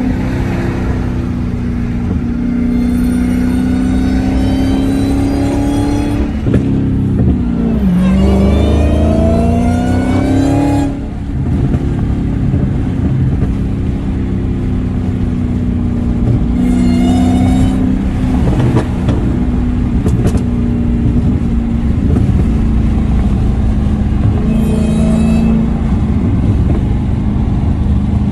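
Supercharged Hellcat HEMI V8 in a Dodge Charger accelerating hard, its pitch rising in several pulls: two long ones in the first eleven seconds with a brief drop between gears, then shorter ones later. The supercharger whine is weaker than usual, which the driver puts down to a wet air filter.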